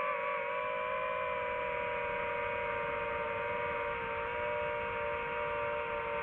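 DJI FPV quadcopter's motors and propellers whining steadily in flight: a hum of several steady tones that shift slightly in pitch near the start.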